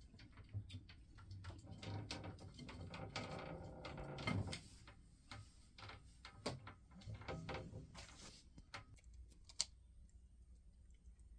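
Faint, irregular clicks and taps, with stretches of scratching or rustling noise a couple of seconds in and again near the end.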